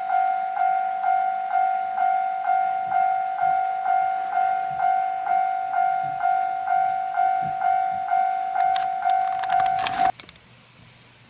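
Japanese-style level-crossing alarm on a model railway layout, ringing a pulsing two-note ding about twice a second. A few sharp clicks come near the end, and then the alarm cuts off abruptly.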